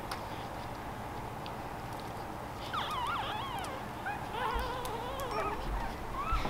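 Week-old Boston Terrier puppies squealing and whimpering, with several high, wavering cries that rise and fall in pitch and overlap, starting about halfway through.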